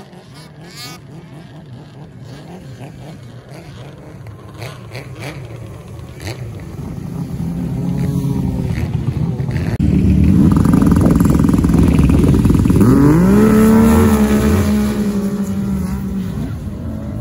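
Racing snowmobile engines at full throttle, faint at first and growing much louder as the sleds come close. About three-quarters of the way through, one engine's pitch sweeps sharply upward as it revs and accelerates, then holds high and fades away.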